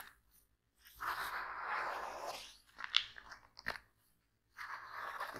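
Gloved hands handling watch packaging: two stretches of crinkling rustle, about a second in and again near the end, with a few sharp clicks and taps between them.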